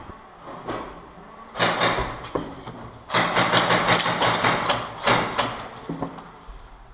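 Electric airsoft guns firing full-auto bursts, a rapid run of shots over a motor whir: a short burst about a second and a half in, then a longer one of about two and a half seconds.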